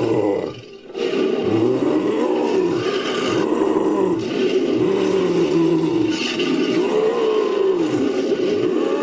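Designed monster roar sound effect, layered from animal roars and a human voice, in a continuous string of rising-and-falling roars with a brief break about half a second in.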